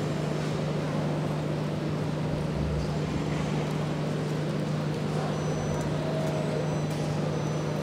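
Steady background rumble and hiss with a constant low hum throughout, with no distinct events.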